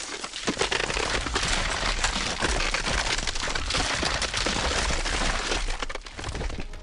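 A tidewater glacier calving: a wall of ice breaks away and crashes into the sea, a loud cracking dense with sharp cracks and crashes over a deep rumble and the churning splash of the falling ice.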